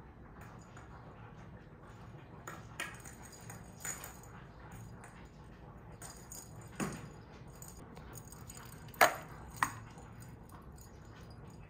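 Kittens at play on a hard floor: a few short, sharp sounds over quiet room tone, the two loudest close together near the end.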